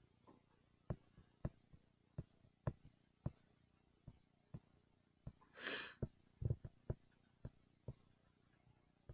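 Faint, irregular sharp taps and clicks, about a dozen, from drawing on a laptop screen, with one short burst of breath noise a little past the middle.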